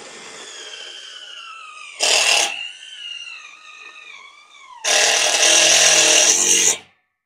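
Cordless power driver running hex-head screws into a galvanized steel truss rail. Its motor whine sags in pitch as each screw bites, with a loud burst about two seconds in and a longer, louder run from about five seconds in that stops suddenly near the end.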